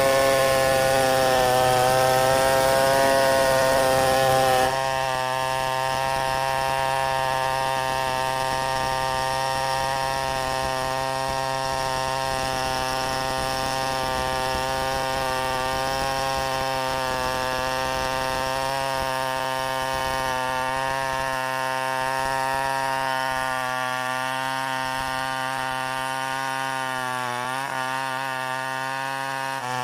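Two-stroke chainsaw running steadily under load as it cuts wood, its engine note holding level with a short dip in pitch near the end.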